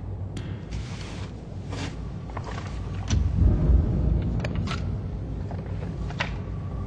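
Low, steady rumbling drone with scattered clicks, clanks and short hissing swishes; the rumble swells louder about three seconds in.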